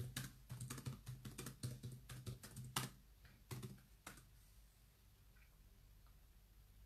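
Typing on a computer keyboard: a quick run of key clicks for about three seconds, then two single clicks about half a second apart.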